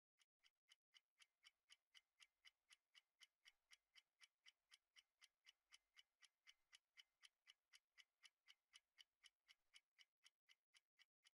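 Very faint, even ticking, about four ticks a second, growing slightly at the start and dying away near the end.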